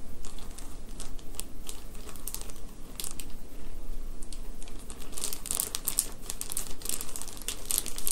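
Hands working cornstarch and water into oobleck in a plastic Tupperware dish: irregular crackling clicks and rustles, busier in the second half.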